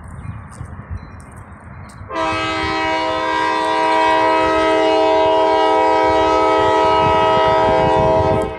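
Diesel locomotive's multi-chime air horn sounding one long steady blast for a grade crossing. The blast starts about two seconds in and cuts off near the end, over wind rumbling on the microphone.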